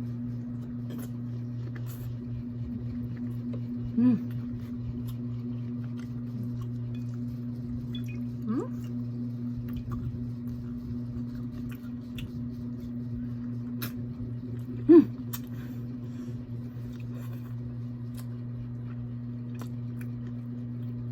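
Eating sounds: scattered small clicks and squishes of chewing and handling seafood, over a steady low hum. Three brief voice sounds break in, the loudest about fifteen seconds in.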